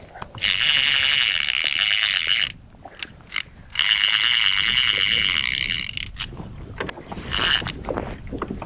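Fishing reel's drag buzzing as a hooked fish pulls line off, in two runs of about two seconds each and a short burst near the end.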